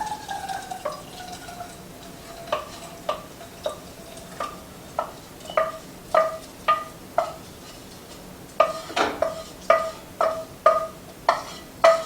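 A utensil scooping rice and knocking against a metal saucepan: about twenty separate clinks, each ringing at the same pitch, with a quicker run of knocks about nine seconds in.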